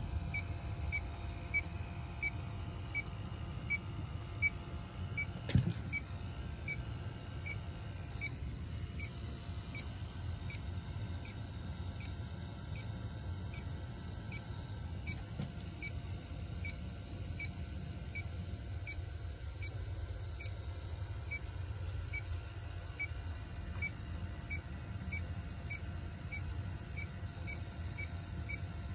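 Inficon D-TEC 3 refrigerant leak detector beeping steadily, about two short high beeps a second, while its probe searches a frozen evaporator coil for a Freon leak. A low steady hum runs underneath.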